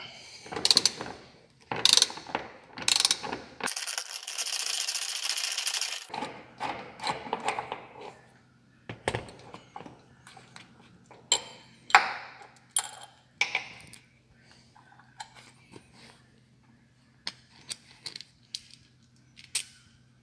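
Socket ratchet wrench loosening a bolt. A few separate clicking strokes are followed by about two seconds of fast continuous ratchet clicking as the bolt spins loose. Scattered clicks and knocks follow as the tool and the freed bolt are handled.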